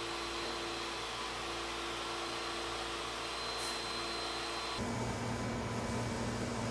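Steady whir of machinery in a plastics fabrication shop making sneeze guards. About five seconds in it switches abruptly to a different steady machine noise with a low hum.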